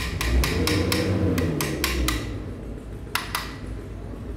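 Ratchet wrench clicking quickly, about five clicks a second for two seconds, then two more clicks after a pause, as a nut is run down.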